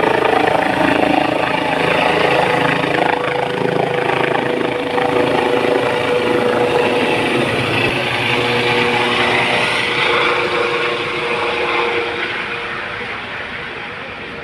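Helicopter running steadily with a held whine, growing quieter over the last couple of seconds.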